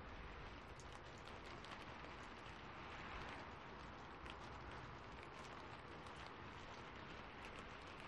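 Steady rain with a crackling fireplace: an even, faint hiss of rain with many small, sharp crackles scattered through it.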